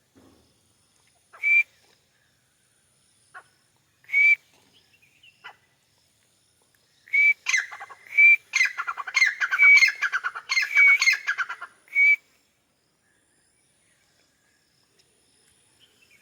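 Grey francolin (white teetar) calling: short, high, whistled single notes a few seconds apart, then a loud rapid run of repeated notes lasting about five seconds, closed by another single note.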